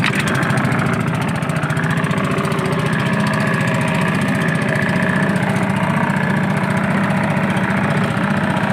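Small boat's motor running steadily with a fast, even beat.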